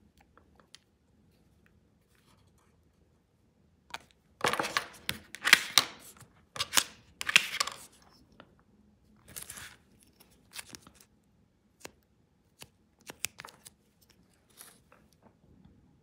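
A scraper dragged several times across a metal nail-stamping plate, a harsh scrape with each stroke, clearing the excess stamping polish off the design. This is followed by scattered light clicks and scrapes as the stamper is worked over the plate.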